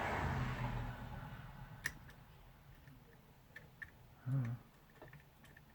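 Light, scattered clicks and ticks of small tools and plastic parts being handled while a drone camera gimbal is worked on. A broad rushing noise fades out in the first second or so, and a brief low hum comes about four seconds in.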